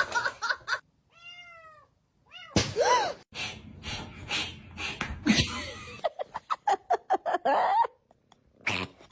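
Domestic cat meowing several times, each call rising and falling in pitch. A quick run of short knocks or clatter comes in the second half.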